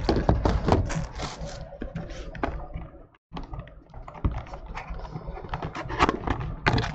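Cardboard trading-card boxes being handled and set down on a table: a run of irregular clicks, taps and knocks, with a brief silence about three seconds in.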